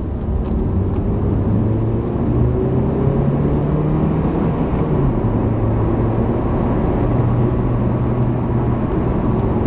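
Honda Civic engine and tyre noise heard from inside the cabin under acceleration: the engine pitch climbs for about five seconds, drops sharply at a gear change, then holds steady at a lower pitch.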